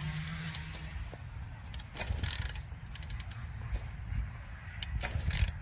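Wind rumbling on the microphone, with the faint steady note of a distant Honda CR125 two-stroke dirt bike engine that fades out within the first second.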